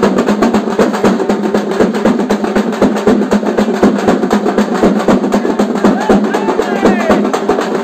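Loud, rapid drumming: several drums beaten in fast rolls without a break.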